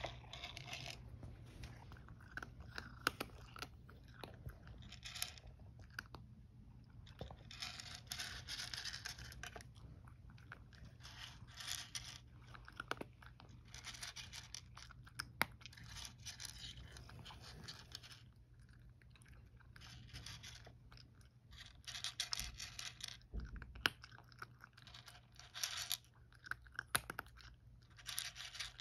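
A cat crunching dry kibble, chewing in irregular bursts of crisp crackles with short pauses between mouthfuls, over a faint steady low hum.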